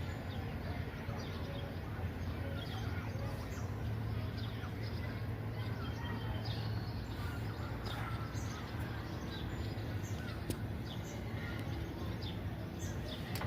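Birds chirping with short, high calls scattered throughout, over a steady low hum.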